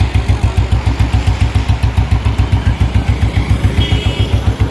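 Royal Enfield Bullet 350 Classic's single-cylinder engine running at a steady idle, an even low thump of about six to seven beats a second.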